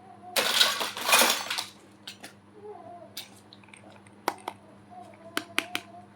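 Small plastic toy kitchen pieces and packaging being handled: a loud rustling burst in the first couple of seconds, then a series of light, sharp clicks and taps as pieces are set down.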